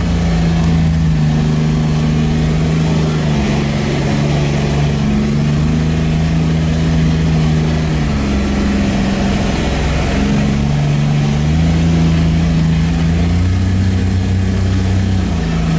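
All-terrain utility vehicle's engine running under way, heard from inside the cab. Its drone steps up and down in pitch a few times as the throttle changes.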